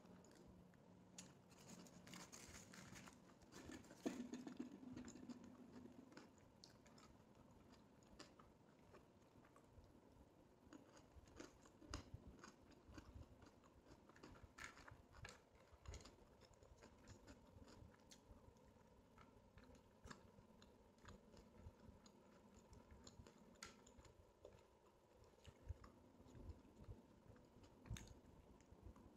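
Faint eating sounds: a plastic bag crinkling around a shawarma roll in the first few seconds, then chewing and small mouth clicks as French fries dipped in hummus are eaten.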